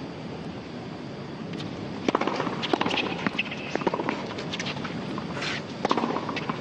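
Tennis rally on a hard court: a string of sharp racket strikes and ball bounces starting about two seconds in, spaced roughly half a second to a second apart, over a steady hiss of stadium ambience.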